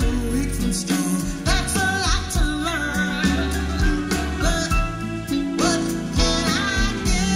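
A woman singing a soul ballad with band accompaniment, played back through JBL 4343 studio monitors driven by a Schiit Freya preamp on quads of 6SN7-type tubes and picked up by microphones in the room. Partway through, the audio changes from the CBS Hytron 5692 tubes to the Electro-Harmonix 6SN7 tubes, a splice between two recordings made for comparison.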